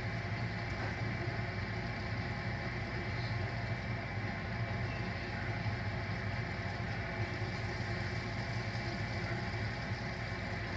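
Potato wedges deep-frying in hot oil: a steady bubbling sizzle, over a steady low hum.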